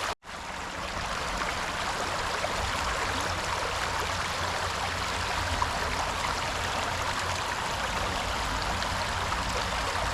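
River water running steadily over a riffle, an even rushing hiss. The sound drops out for a split second right at the start.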